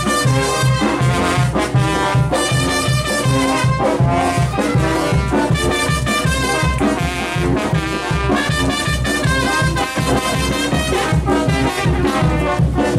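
Mexican brass banda playing a dance tune: trumpets and trombones over a steady, pulsing low beat.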